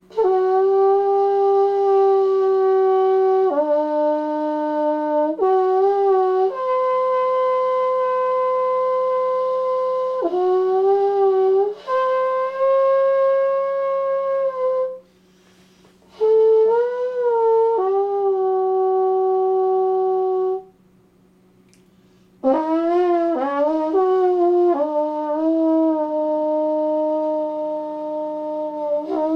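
Soprano trombone played solo and improvised: long held notes, some joined by slide glides. There are two short pauses past the middle, and a faint steady hum runs underneath.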